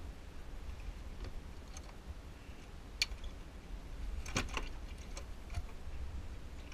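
Scattered clicks and knocks from a sailboat's deck hardware and lines as the mainsheet is handled and eased out, with a quick cluster of clicks about four and a half seconds in, over a low steady rumble.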